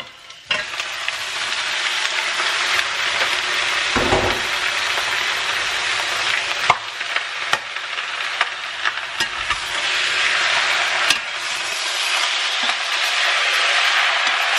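Cubed raw pork sizzling as it goes into hot oil and browned onions in a stainless steel pan, the sizzle setting in about half a second in and growing louder in the second half. A metal spatula scrapes and clicks against the pan as the meat is stirred.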